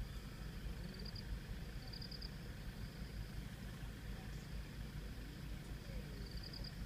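Safari jeep engine idling with a steady low rumble. Over it come short, high, rapid trills, each about half a second long: one about a second in, another about two seconds in, and a third near the end, above a thin steady high whine.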